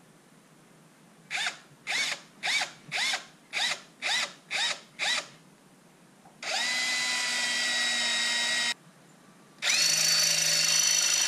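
Cordless Ridgid drill with a long bit boring through plastic and an aluminum bracket. It starts with about eight short trigger bursts, each winding up in pitch, then runs steadily twice for about two seconds each.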